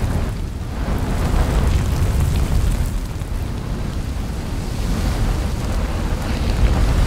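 Dubbed-in volcanic eruption sound effect: a continuous deep rumble with a wind-like rushing noise over it, put in place of the eruption's real sound.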